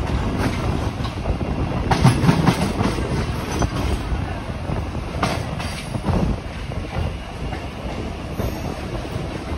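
Train running on its rails, heard from a moving carriage: a steady rumble with wheels clacking over rail joints, with louder clacks about two, five and six seconds in.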